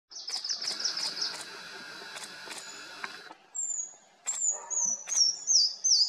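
Bar-tailed (Himalayan) treecreeper calling: a quick run of high, thin notes at the start, then from about halfway a string of high whistles, each sliding downward, the series stepping lower in pitch. A few sharp clicks sound among the notes.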